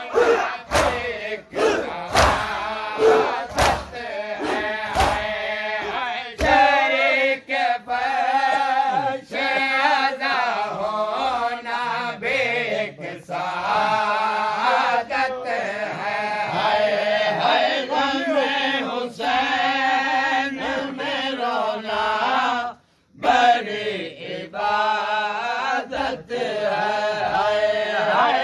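Male mourners chanting a noha together in a group. Through the first six seconds or so, rhythmic matam chest-beating strikes keep time with the chant. After that the chanting voices carry on alone, and they break off for a moment near the end.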